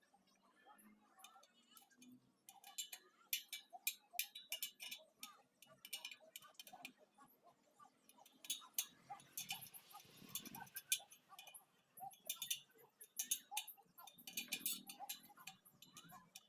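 Irregular light metallic clicks and ticks from spoke work on an old spoked motorcycle wheel, coming in clusters with short pauses between them.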